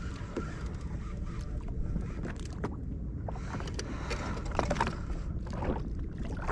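Steady low rumble of wind and water around a fishing Sea-Doo, with scattered short clicks and knocks through it.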